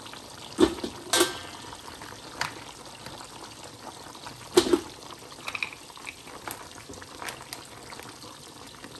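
Pot of water boiling steadily, with a few sharp knocks and clinks over it; the loudest comes about four and a half seconds in, and one a second in rings briefly like metal.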